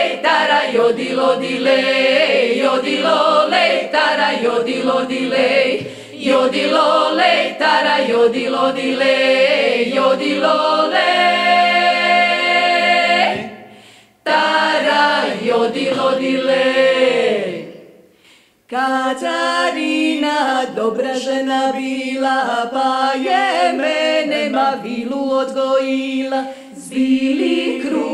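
Women's klapa ensemble singing a cappella in several parts, with no instruments. Near the middle one chord is held long, then the singing breaks off twice for a moment between phrases.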